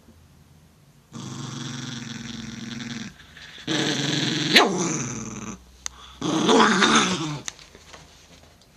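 Italian greyhound growling at a finger poking it, in three bouts: a steady growl, then two louder ones, the second with a sudden sharp peak in the middle and the third wavering in pitch.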